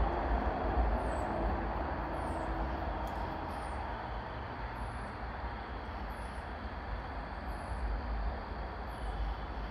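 Steady outdoor rushing noise with an uneven low rumble, and a faint, thin high chirp that falls in pitch, repeating about once a second.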